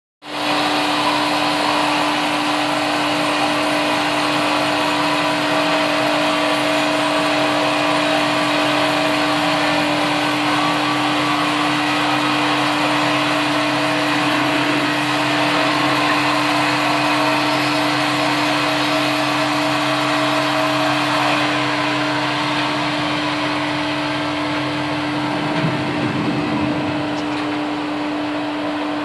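Zenz BN 110 S band sawmill running and sawing through a log: a steady machine hum under the hiss of the blade cutting wood. The higher hiss thins out about three-quarters of the way through while the machine keeps running.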